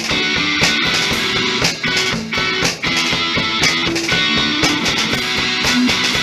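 A live two-piece rock band: an electric guitar played through a small amplifier, backed by a drum kit with frequent drum and cymbal hits.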